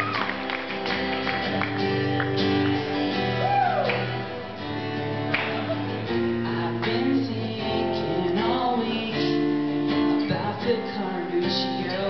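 Acoustic guitar played live through a PA, strumming steady chords that change every second or so, with a few short sung phrases over it.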